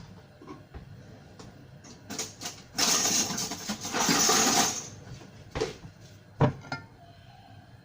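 Cooking sounds at the stove: a few light clicks, then a loud hissing rush lasting about two seconds, then two sharp knocks of cookware.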